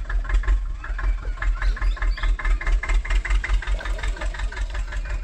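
Toy tractor running with a diesel-like engine chug, steady at about six beats a second.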